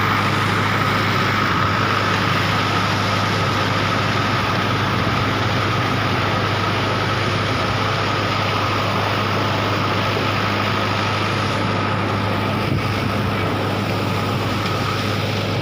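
An engine running steadily at constant speed, with a deep even hum and a thin high whine that do not change.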